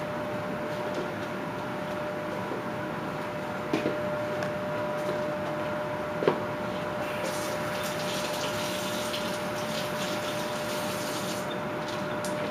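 Steady electrical hum throughout, with two sharp knocks in the first half, then about four seconds of scratchy hissing, typical of a whittling knife shaving wood.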